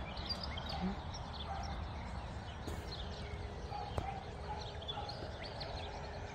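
Many birds chirping and calling in short notes, a morning bird chorus, over a steady low rumble. A single sharp click sounds about four seconds in.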